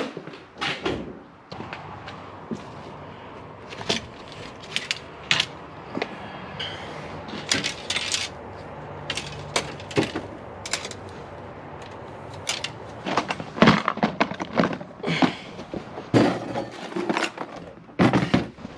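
Irregular knocks, clicks and thuds, as of things being handled and set down, coming thicker and louder in the second half.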